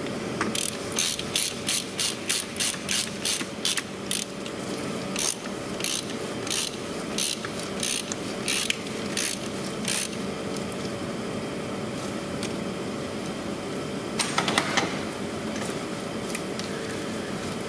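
Socket ratchet clicking as it tightens the oil filter housing cap: a quick run of clicks, slowing after about five seconds and stopping around ten seconds in, then a brief quick flurry of clicks about fourteen seconds in.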